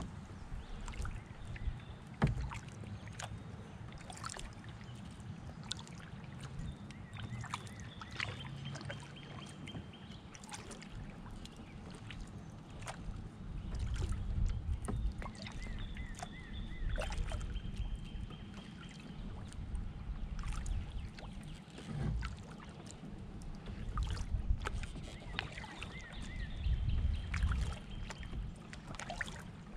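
Canoe being paddled: water splashing and dripping off the paddle with scattered light knocks over a low rumble. A bird repeats the same short phrase three times, roughly every ten seconds, a few quick notes followed by a higher held note.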